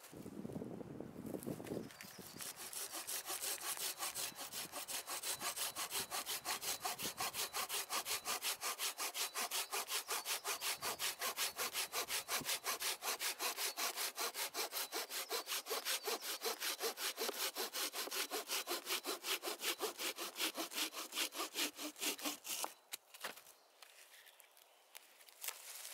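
Small camping hand saw cutting through a dry, barkless deadwood log in quick, even push-pull strokes, which stop a few seconds before the end once the cut is through.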